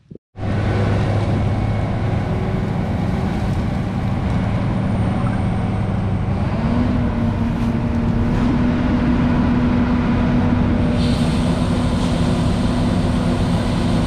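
John Deere S670 combine running at close range, a loud steady drone of engine and machinery with a few steady low tones. About six and a half seconds in, one tone steps slightly higher, and a couple of seconds before the end a higher hiss joins in.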